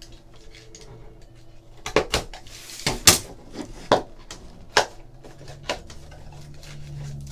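Hands tearing open a Panini Absolute basketball card pack: a series of sharp crackles and snaps of the wrapper, beginning about two seconds in and coming every half second to a second.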